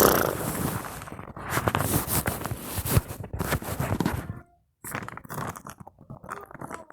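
Plastic toy packaging being handled and pulled at to tear it open, with irregular crinkling, scraping and small crackles. The sound cuts out completely for a moment about four and a half seconds in.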